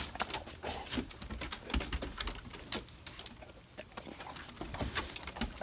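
Dog collar tags jingling and clicking irregularly as the dog moves about.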